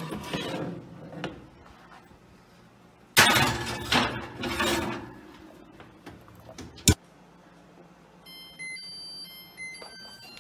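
Bursts of rustling noise, the loudest a few seconds in, then a single sharp knock, then a quick run of high electronic beeps at changing pitches near the end.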